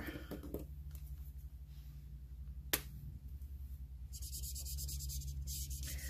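A single sharp click about three seconds in, then, from about four seconds in, the scratchy rub of an alcohol marker's nib stroking across glossy photo paper.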